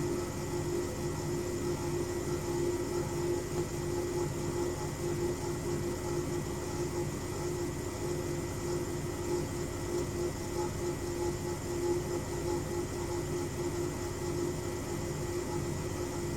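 Hoover Zerowatt washing machine running in its spin cycle: a steady hum with a low rumble that pulses evenly. The owner thinks the rumble sounds like worn drum bearings.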